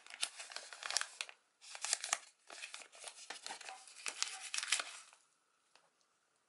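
A small paper packet being torn open and crinkled by hand: a run of crackly tearing and rustling that stops about five seconds in.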